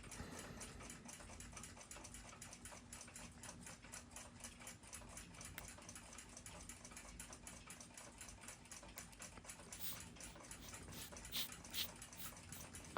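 Faint, rapid ticking, with two sharper clicks near the end.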